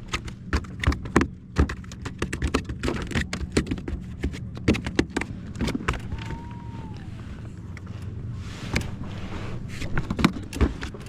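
Irregular knocks and clatter of a freshly caught bass thrashing and being handled on a small boat, over a steady low hum. About six seconds in, a short whistle-like tone holds and then falls away.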